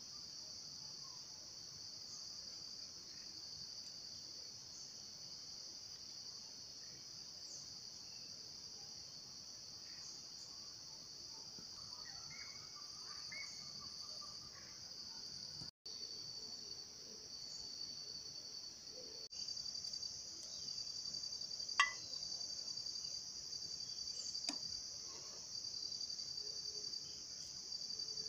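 Chorus of forest insects: a steady, high-pitched trilling buzz. A couple of sharp knocks come in the second half.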